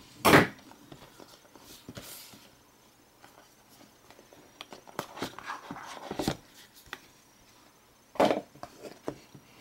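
A phone's cardboard retail box being handled and opened: scattered taps, clicks and soft rustling of packaging, with a sharp knock at the start and another about eight seconds in.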